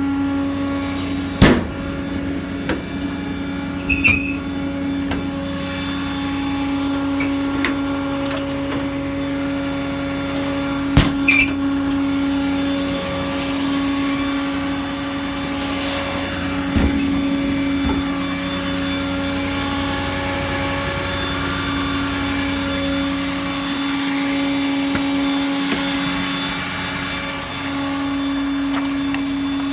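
The truck's 6.7 Power Stroke diesel idling with a steady hum, joined by several sharp metal clunks and clicks as utility-body compartment doors and latches are worked.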